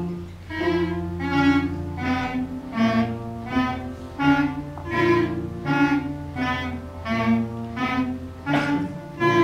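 Beginning student clarinet ensemble playing a simple tune together in a steady beat, with a note accented about every three-quarters of a second over a low held bass line.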